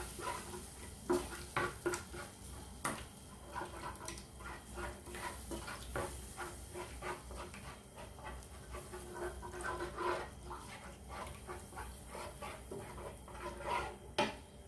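Wooden spatula stirring and scraping a thick roux-and-milk paste in a nonstick frying pan, a quick run of scrapes and soft squelches several times a second as the lumps are worked out while milk is added bit by bit for a white sauce.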